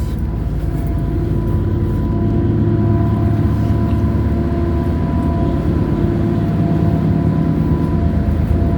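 Car ferry's Cummins diesel engines running steadily underway: a loud, even low rumble with a constant whine held above it.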